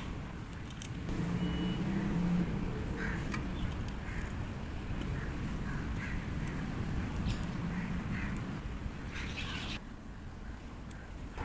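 Birds calling off and on over a steady low background rumble.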